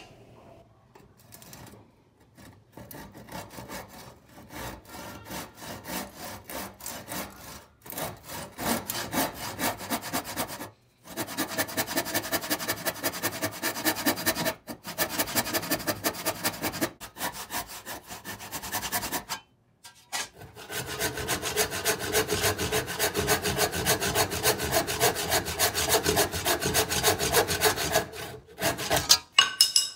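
Handsaw cutting a peroba rosa hardwood board, ripping a strip along its edge in runs of quick back-and-forth strokes. The strokes are lighter for the first several seconds, then harder and louder from about ten seconds in, with a few short pauses between runs.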